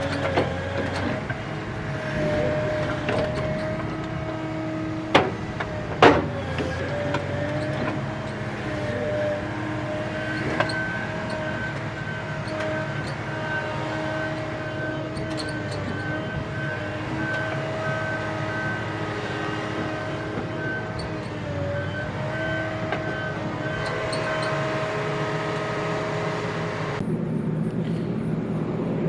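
John Deere 853M tracked feller buncher running under work, a steady engine drone with a thin whine above it and the engine speed wavering slightly. Two sharp knocks come about five and six seconds in, and the sound changes near the end.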